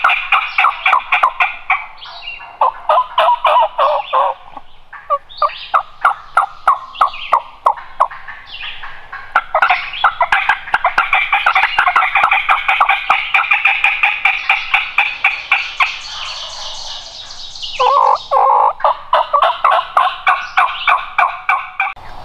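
Turkey calling: a long, loud run of quick repeated notes, about four a second. It eases briefly around four seconds in and again near seventeen seconds.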